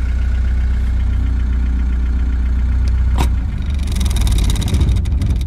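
Mercedes 240D four-cylinder diesel engine idling, then shut off: after a click about three seconds in, the running turns rough and uneven and dies away at the end.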